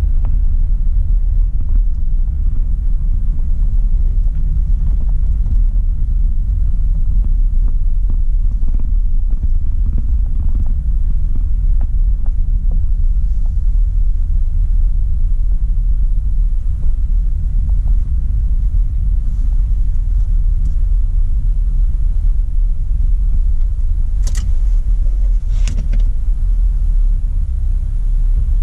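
Steady low rumble of a vehicle driving, heard from inside the cabin: engine and road noise. Two sharp clicks come near the end.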